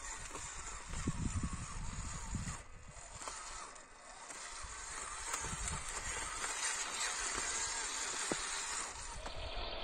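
JJRC Q65 RC Willys jeep driving over loose rocky dirt, its motor and tyres-on-gravel noise heard under wind rumbling on the microphone. The sound dips briefly about three seconds in.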